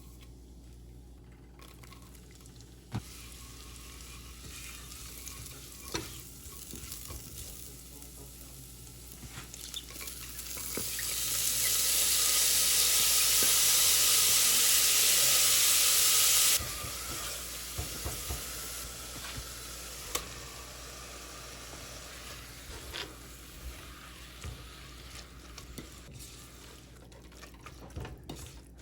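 Food frying and being stirred in a hot pot: scattered stirring clicks over a low sizzle, then a loud, even sizzle from about eleven seconds in that cuts off suddenly about five seconds later.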